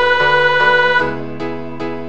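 Computer (MIDI) playback of a choral score with piano accompaniment: sustained organ-like voice notes over chords. The held notes end about a second in, leaving repeated chord strikes roughly every 0.4 s.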